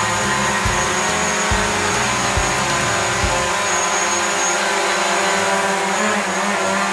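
DJI Mavic Pro quadcopter flying indoors: the steady, many-toned whine of its four motors and propellers, with a few low thuds in the first half.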